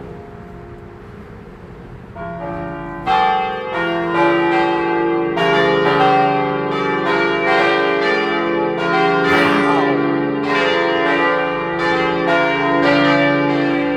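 Church tower bells starting a full peal. After faint held tones at first, the bells come in about two seconds in and from about three seconds many bells ring together, their strokes overlapping and sustained.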